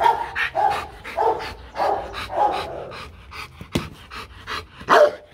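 A Rottweiler panting hard, in a run of short voiced huffs about every half second to second, the loudest one near the end. A sharp click sounds a little before four seconds in.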